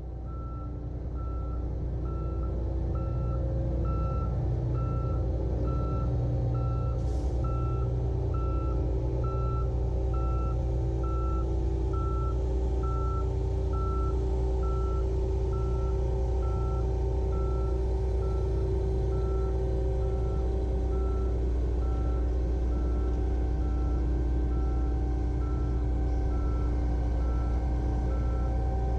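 John Deere T670i combine harvester's engine running steadily, with an alarm beeping at an even, repeating rate.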